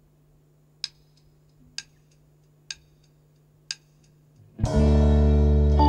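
Four evenly spaced clicks, about one a second, counting the band in; then, near the end, the band enters loudly with sustained organ-like keyboard chords over deep bass.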